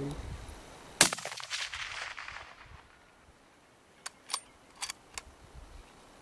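A single rifle shot about a second in, its echo rolling away over the next second and a half, followed by a few sharp clicks near the end.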